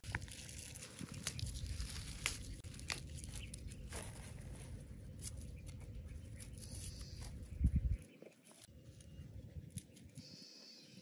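Kitchen knife cutting and peeling shallots and garlic by hand: scattered light clicks and crackles of blade and dry papery skins, with one louder low thump about three quarters of the way through.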